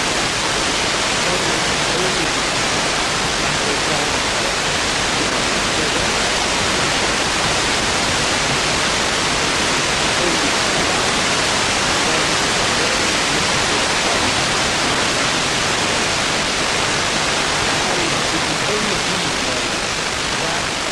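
A steady, loud rushing noise, even across low and high pitches, that does not change.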